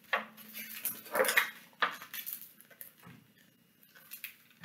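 Pages of a hardcover picture book being turned and handled: a few short paper rustles, the loudest about a second in.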